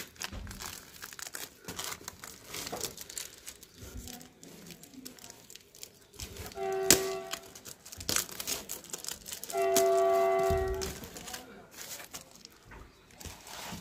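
Cardboard and black polythene being torn and crumpled by hand, a continual crinkling and ripping with small knocks. About halfway through, and again a few seconds later for just over a second, a steady pitched tone sounds, the second the loudest thing heard.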